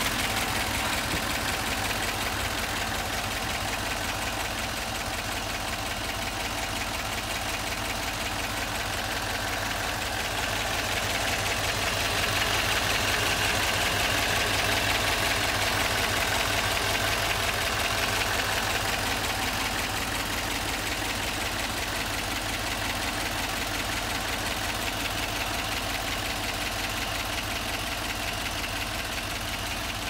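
The 1957 Ford Thunderbird E-code's 312 V8, fed by two four-barrel carburetors, idling steadily, heard from over the open engine bay. It gets a little louder and brighter for several seconds in the middle.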